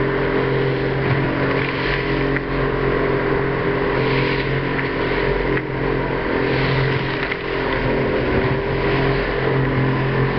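A small boat's engine running steadily at speed, with water rushing and spraying along the hull as it pushes through choppy sea.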